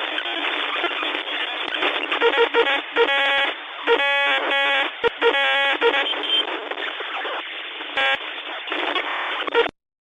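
Emergency alert broadcast audio, heard as a loud hiss of static squeezed into a thin radio- or phone-like band, with a harsh buzzing tone that cuts in several times between about three and six seconds in and again briefly near eight seconds. It cuts off suddenly near the end.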